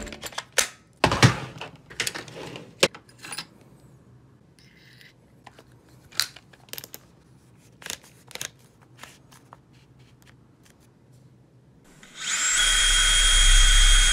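Clicks and handling knocks as a battery pack is snapped onto a DEWALT 20V MAX cordless tool and its numbered clutch collar is turned. About twelve seconds in, a DEWALT 20V MAX cordless drill starts up and runs at a steady speed with a high whine.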